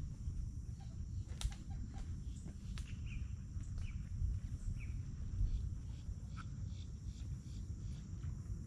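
Swamp ambience: a steady high insect buzz with a few short bird chirps scattered through, over a constant low rumble.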